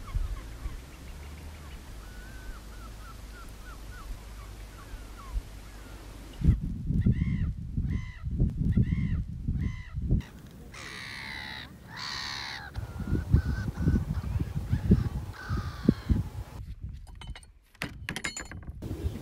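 Birds calling: faint chirps at first, then from about six seconds in a run of loud, repeated calls that rise and fall in pitch, and later a few harsh calls that fall in pitch, over wind rumbling on the microphone.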